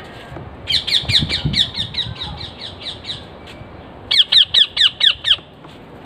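Parrot giving two runs of quick, repeated falling screeches. The first run fades out, and the second, about four seconds in, is louder.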